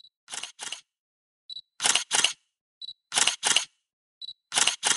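Camera shutter sound repeated four times, about every second and a half: each time a short high beep followed by a two-part shutter click.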